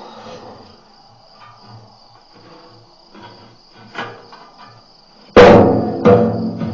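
Crickets chirring steadily, then about five seconds in two sudden loud, booming knocks close on the microphone, typical of a lion bumping or mouthing the camera's microphone.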